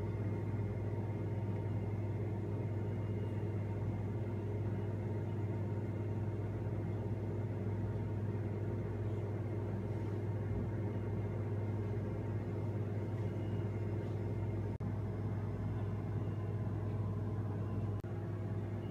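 A steady low hum with a few faint higher tones over it, unchanging apart from two brief dips near the end.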